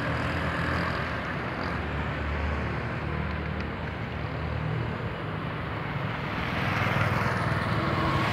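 Scania 113 H truck's six-cylinder diesel engine idling steadily, a low hum that grows a little louder near the end.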